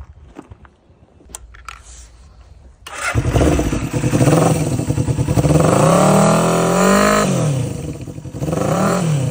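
Suzuki GSX250T parallel-twin motorcycle engine with its silencer fitted, catching suddenly about three seconds in after a few light clicks, then revved up and let fall, with a second short blip of the throttle near the end.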